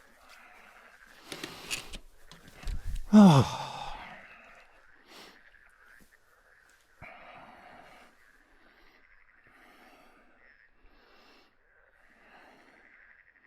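A person's loud falling sigh-like exhale about three seconds in, just after a short rustle, over a steady high-pitched chorus of frogs. Fainter short rustling sounds follow at intervals.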